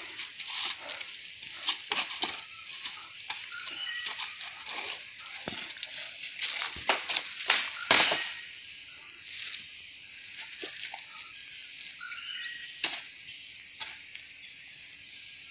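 Footsteps and scuffing through dry leaf litter with a run of sharp crackles and knocks, loudest about eight seconds in, fewer after that. Insects chirr steadily behind it.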